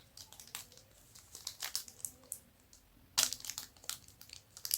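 A snack wrapper being crinkled and handled: scattered crackles, with the loudest run of crinkling about three seconds in.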